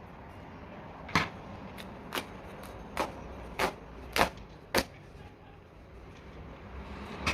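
Six sharp knocks, spaced about half a second to a second apart, over a steady low background noise.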